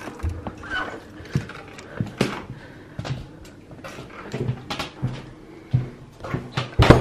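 Front door being unlatched and opened, then a string of irregular clicks, knocks and rustles as someone creeps into a small hallway, with a brief squeak about a second in and the loudest knock near the end.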